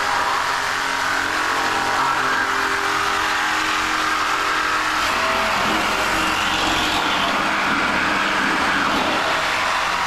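Corded 15-amp Milwaukee Sawzall reciprocating saw running steadily at speed, its blade cutting into a cast brass statue.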